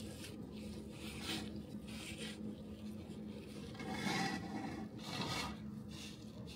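Repeated rasping, scraping strokes, like a file or brush worked by hand, coming irregularly about once a second and loudest about four seconds in, over a faint steady hum.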